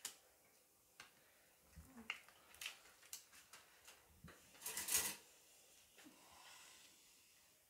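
Wooden spoon stirring a dough of flour, eggs and melted butter in a plastic bowl: faint scrapes and taps, the loudest about five seconds in.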